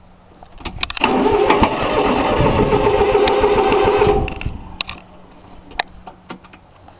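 Three-cylinder Yanmar diesel cranking on its starter for about three and a half seconds without catching, then the starter stops, and a few sharp clicks follow. It won't fire because its fuel lines have not been bled.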